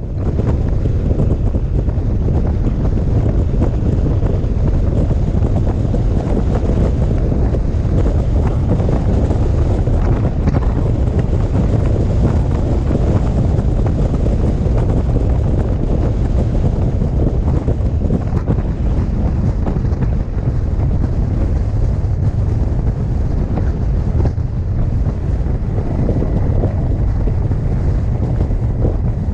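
Wind buffeting the microphone of a camera on a motorcycle riding at speed: a steady, heavy low rumble with no distinct engine note standing out.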